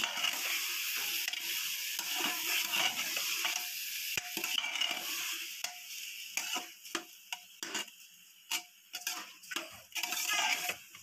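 Metal spatula stirring rice and potatoes in an aluminium pressure cooker, scraping and clicking against the pot, over a sizzling hiss from the frying. The sizzle fades about halfway through, leaving separate scrapes and clicks.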